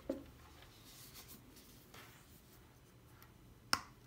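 Faint handling noises as the unboxed items are moved about: a soft knock just after the start, light rustling, and one sharp click near the end.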